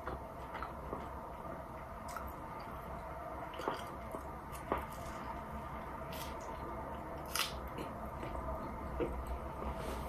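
Close-up mouth sounds of someone biting into and chewing a Taco Bell chalupa with a fried flatbread shell: scattered soft clicks and crunches over a steady low hum.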